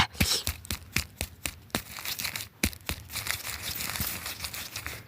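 Roasted goat meat being torn apart and eaten: a steady run of irregular crisp crackles and tearing sounds.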